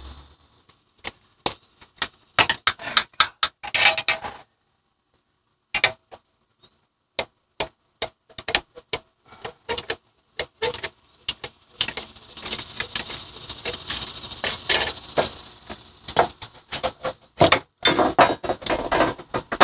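Irregular metallic clicks and clinks of hand tools working on a Jeep's front suspension while a 10 mm brake line fastener is undone, with a stretch of faster light clicking in the second half.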